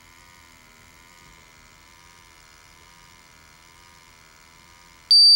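Ventis MX4 gas monitor's built-in sampling pump running with a steady faint hum during its zero. Near the end the monitor gives a loud high-pitched beep as the zero completes.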